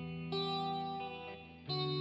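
Background music: a guitar picking slow, ringing arpeggiated notes, with new notes struck about a third of a second in and again near the end.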